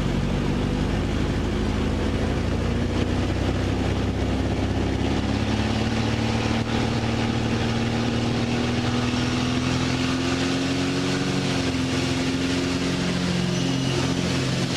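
CubCrafters NX Cub's piston engine and propeller running at takeoff power during the takeoff roll, heard inside the cockpit. A steady drone whose pitch creeps slightly upward as the aircraft gathers speed.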